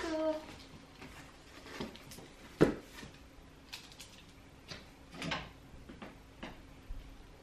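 Cardboard shipping box being opened by hand: tape cut with scissors and cardboard flaps scraping and folding back. A short falling squeak at the start and a sharp click about two and a half seconds in.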